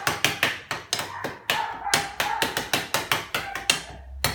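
A rapid series of sharp knocks, about five a second, stopping shortly before the end with one last knock.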